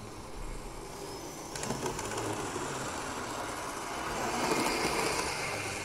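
Model steam locomotive running along the track, its small electric motor and wheels on the rails getting louder as it comes closer, loudest about four and a half seconds in. The sound cuts off abruptly at the very end.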